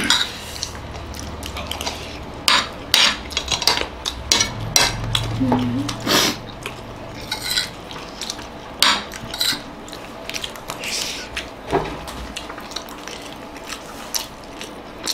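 Metal fork and spoon clinking and scraping against a plate of rice, in short irregular clicks.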